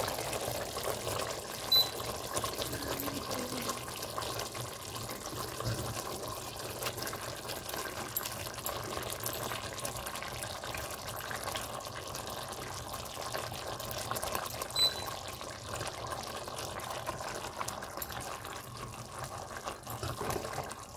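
Parboiled basmati rice being scooped out of its cooking water with a steel ladle and laid over chicken in a steel pot, with a steady watery sound of the starch water draining and splashing. Two faint short beeps, about two seconds in and again about fifteen seconds in.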